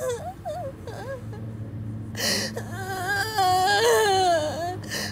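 A woman crying hard: wavering, whimpering sobs broken by a sharp gasping breath about two seconds in and another near the end. The longest wail, from about three to four and a half seconds in, is the loudest.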